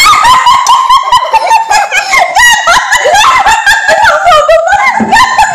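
High-pitched giggling and laughter in quick bursts, starting suddenly and running on.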